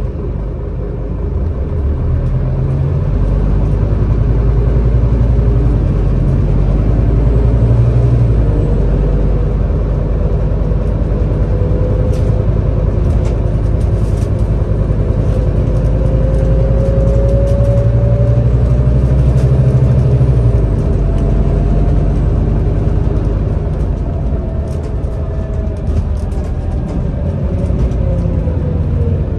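Scania Citywide LFA city bus heard from a passenger seat inside the cabin, its engine and drivetrain running with a deep rumble as it drives. A whine climbs in pitch as the bus gathers speed and falls again near the end as it slows, with light rattles here and there.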